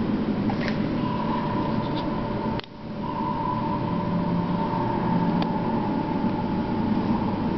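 Steady machinery hum and hiss of an aquarium hall, with a faint steady high tone and a few light clicks. The sound drops out sharply about two and a half seconds in and comes back within half a second.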